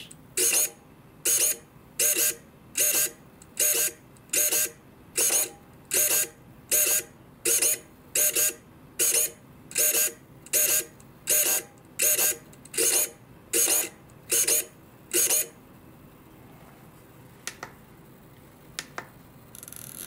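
Blue Bird M15V micro wing servo, with metal gears and a coreless motor, sweeping its pointer arm from end to end at full throw. Each swing is a short whir of motor and gears, about nineteen in a row a little under a second apart, and then it stops.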